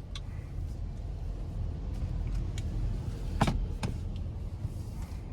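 Car running with a steady low rumble, with a few light clicks and two sharp clicks a little past halfway, the first the louder.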